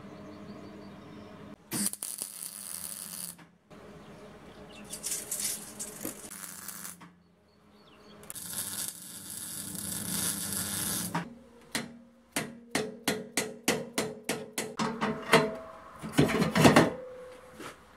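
MIG welder arcing in a few short bursts of crackling hiss while tacking a steel tube frame, followed by a quickening run of sharp metallic clicks and a few loud knocks near the end.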